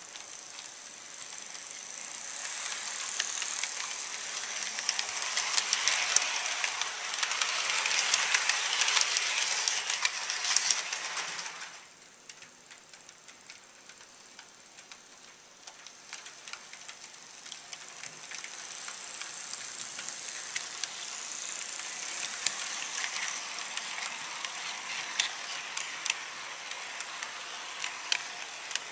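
HO scale model passenger train, an E8 diesel model pulling coaches, rolling along the track with a steady rattle and many small clicks from wheels over rail joints. It grows louder as the train nears, cuts off suddenly about twelve seconds in, then builds again toward the end as the train passes close by.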